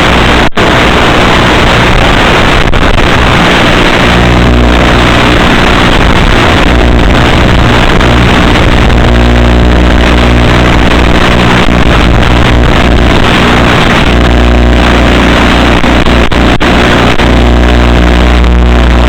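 Electric motor and propeller of an FPV flying wing running loudly, its pitch shifting up and down with the throttle, over heavy wind noise. The sound cuts out for an instant a couple of times.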